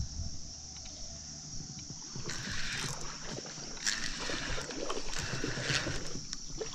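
Water sloshing and splashing in a shallow creek, in a few short bursts over a steady high hiss.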